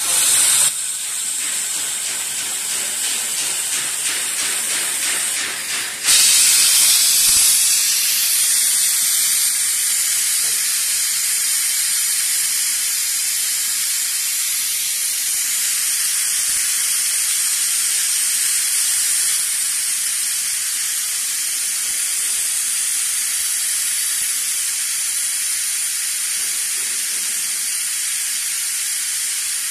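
CO2 laser cutting machine running, giving a steady high-pitched hiss of air that gets louder about six seconds in.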